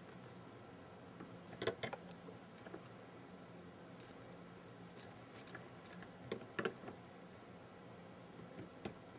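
Small clicks and scrapes of pliers working at the wires and thermal fuse on a 3D printer hot end, loudest as a quick pair about a second and a half in and again as a cluster around six and a half seconds. A faint steady hum underneath.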